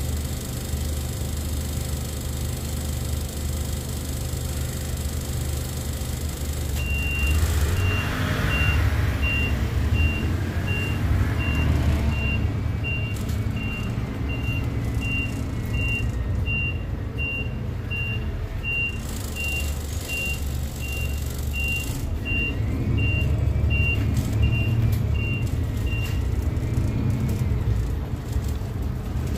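City bus engine running, heard from inside the bus; it grows louder about seven seconds in and again near the end. A high electronic beep repeats steadily from about seven seconds in until shortly before the end.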